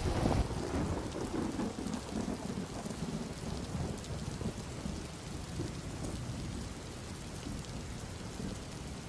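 Heavy rain falling steadily in a thunderstorm. A low rumble is loudest at the start and fades over the next few seconds.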